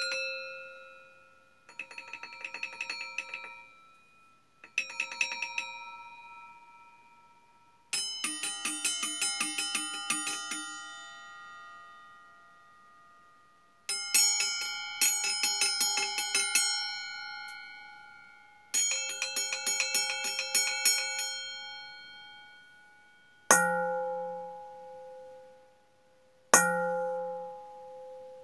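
Stainless steel bowls struck as singing bowls, each giving a bell-like ring. There are five bursts of quick repeated tapping, each leaving several pitches ringing and slowly fading, then two single strikes in the last few seconds.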